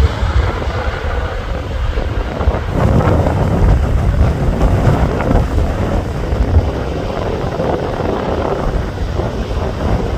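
Strong gusty wind buffeting the microphone, with a steady rumble of airliner engines under it.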